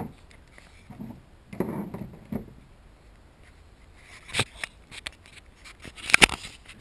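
Hand tools and small parts handled on a workbench: soft rustling, a sharp click about four and a half seconds in, then a quick run of sharp clicks a little after six seconds.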